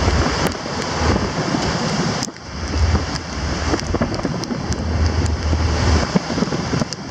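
Wind buffeting the microphone over the rushing hiss of foaming wash and swell breaking along a moving ferry's hull in rough sea. The wind rumble eases briefly about two seconds in.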